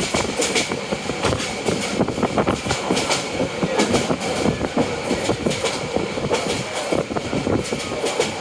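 Passenger train running along the track, its wheels and carriage clattering and rattling steadily with many irregular clicks.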